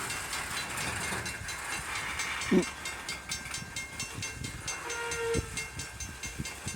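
Loaded coal train's freight cars rolling past, wheels clicking steadily over rail joints, with a brief, louder squeal about two and a half seconds in.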